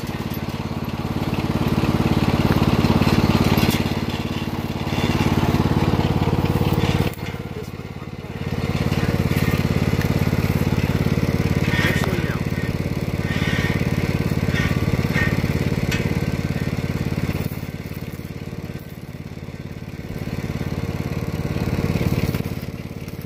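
Lawn tractor's small engine running steadily at idle, with a metal logging chain rattling now and then as it is wrapped around a log.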